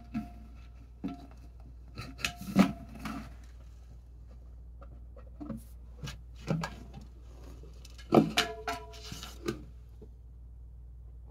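Empty powder can being knocked and pushed along the floor by a cat, giving irregular knocks and clanks, some with a short ringing tone. The busiest, loudest clatter comes about eight seconds in.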